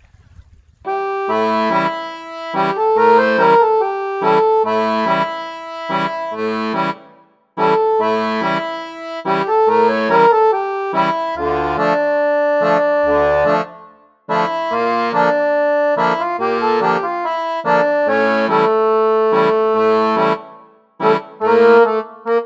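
Background music: a lively accordion tune in short rhythmic phrases, starting about a second in.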